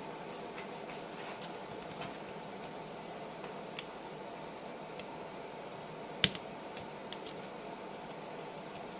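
Light scattered clicks and taps of a small tool and tiny screws being worked on a holographic sight's metal housing, with one much sharper click about two-thirds of the way through. A steady fan-like hum runs underneath.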